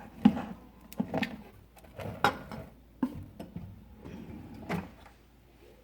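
A series of short knocks and clicks as objects are handled and set down on a hard surface, the loudest a little over two seconds in, then quieter toward the end.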